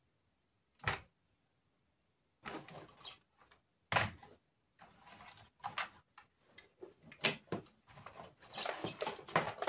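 Scattered knocks, clicks and rattles of a computer keyboard being picked up and moved about on a wooden workbench, starting with a single sharp click about a second in and ending in rustling handling noise.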